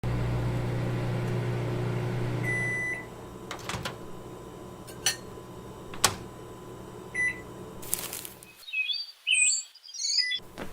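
Microwave oven running with a steady low hum that stops about three seconds in, just after a short beep. Then come a few sharp clicks, another short beep, and a flurry of high chirping sounds near the end.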